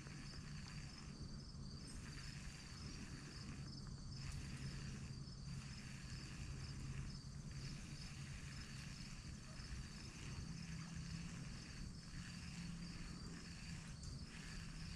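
Faint chorus of insects chirping in a steady, evenly pulsing high trill, with a faint low hum underneath.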